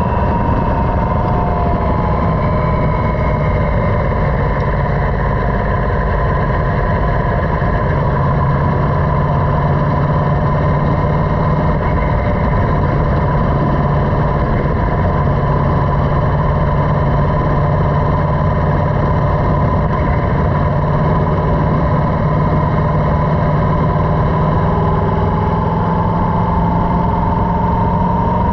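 Motorcycle engine running steadily at highway cruising speed, with wind and road noise, heard from the bike itself. The engine note rises a little near the end.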